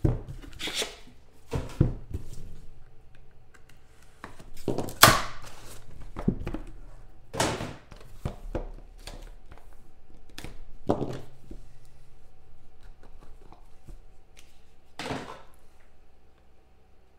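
Cardboard trading-card box being handled and opened on a tabletop: about half a dozen knocks and scrapes as the box is set down and its contents are pulled out and handled, the loudest about five seconds in, with light clicks and rustling in between.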